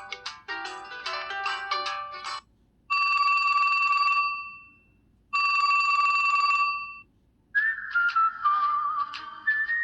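LG Extravert 2 (VN280) phone ringtones played one after another. A quick many-note tune stops about two and a half seconds in. Then come two ring bursts of one steady buzzing tone, each about a second and a half long with a pause between them. Near the end a different tune with sliding pitch begins.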